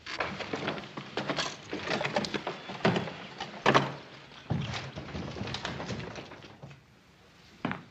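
Wooden knocks, thumps and clatter around a horse-drawn buggy as men climb aboard, dying away about six seconds in, then one short knock near the end.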